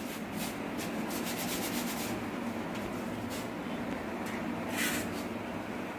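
Hands handling rotis and laying them into steel plates: soft rubbing and scraping sounds, a few in quick succession in the first second and a louder one near the end, over a steady low hum.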